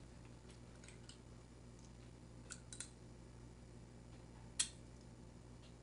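Quiet room tone with a low steady hum, broken by a few faint clicks and one sharper click about four and a half seconds in, from a metal spoon as filling is scooped from a skillet and tasted.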